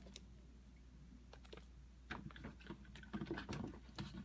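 Rummaging through products and packaging by hand: a run of small clicks, taps and rustles as items are moved about, starting about two seconds in.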